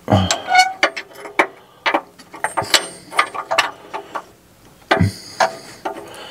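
A steel combination wrench clinking, tapping and scraping against the threaded oxygen sensor and exhaust pipe as it is worked onto the sensor, making a string of sharp metallic clicks. There are two heavier knocks, one right at the start and one about five seconds in.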